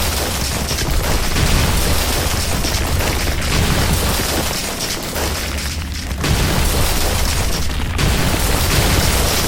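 Added destruction sound effects: a continuous heavy booming rumble of crashing and crumbling, with fresh surges about six and eight seconds in.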